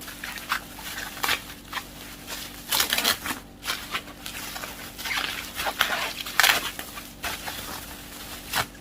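Plastic parcel packaging being torn open and crinkled by hand, in irregular rustling bursts.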